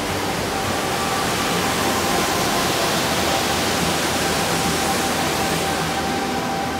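Rocky mountain stream rushing over boulders: a steady, even rush of water that swells a little midway.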